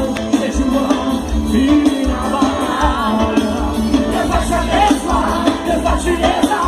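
Praise music with singing over a steady beat and heavy bass.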